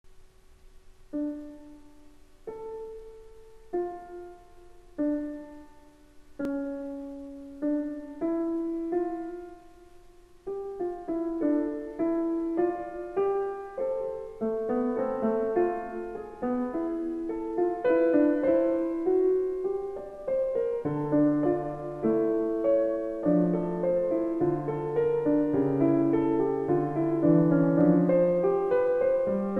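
Solo piano music: slow, separate chords about a second apart for the first ten seconds, then a busier, flowing run of notes, with lower bass notes joining about twenty seconds in.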